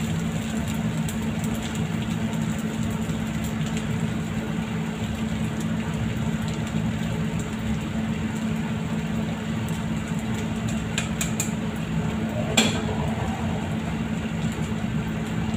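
A steady low mechanical hum, with a few faint ticks and one sharp clack about twelve and a half seconds in.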